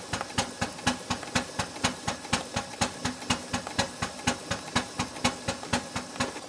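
Live-steam 4.5-inch scale Plastow Burrell model Showman's engine running under steam, giving a steady, rapid beat of about five strokes a second.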